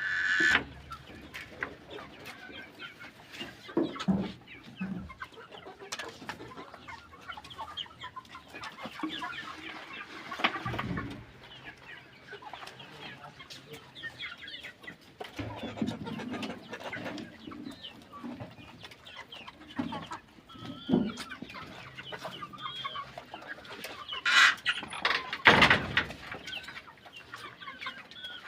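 A flock of young chickens clucking, with a few louder knocks and rustles, the loudest near the end.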